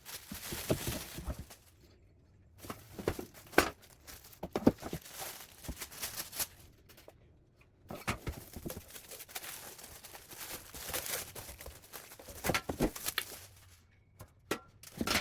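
A cardboard shipping box being opened and unpacked: packaging tearing and crinkling in irregular bursts, with scrapes and sharp knocks from the parts being handled.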